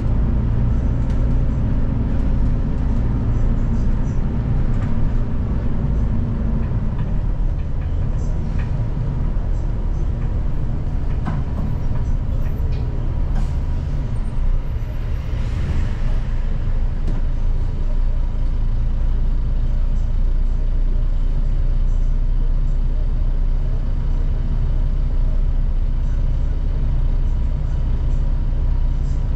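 Inside a city bus cabin at the rear seats: a steady low engine and road rumble. The engine note drops about seven seconds in, and a brief hiss of air comes about halfway through.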